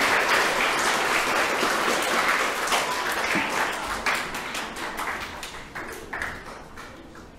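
Audience applauding, the clapping dying away steadily. Toward the end a few separate footsteps of shoes on a wooden stage floor are heard.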